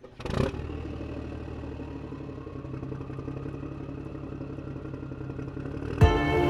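Small brushed electric motor and gear drivetrain of a 3Racing EX Real RC crawler running with a steady hum and light clatter, after a knock near the start. Music starts near the end.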